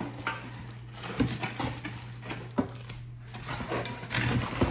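Cardboard box being handled and opened on a glass tabletop: a few dull knocks, then flaps and packing rustling, busier near the end. A low steady hum runs underneath.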